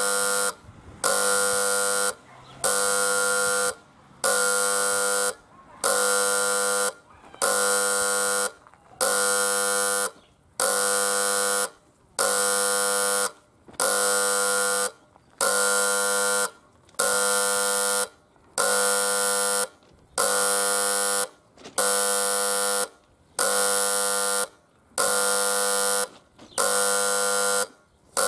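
Electric horn buzzer of a Soviet-type (SSSR) level crossing warning signal, sounding a harsh buzz in steady, evenly repeated pulses a little over a second long with short gaps: the crossing warning is active.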